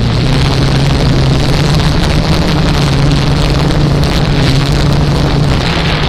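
A small quadcopter drone's propellers and motors humming steadily, with rushing, rumbling wind noise on the microphone.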